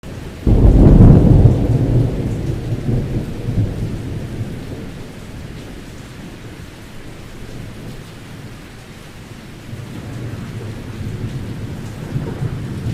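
Thunderstorm: a sudden clap of thunder about half a second in, rolling on in a low rumble that fades over a few seconds, over steady rainfall. A second rumble of thunder builds near the end.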